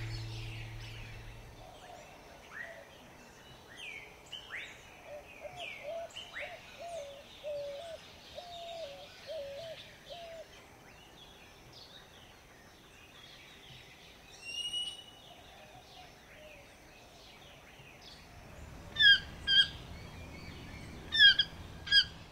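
Recorded tropical jungle birdsong: many birds chirping and whistling, with a low warbling call repeated several times in the middle. Near the end come four loud short calls in two pairs. Music fades out in the first second or so.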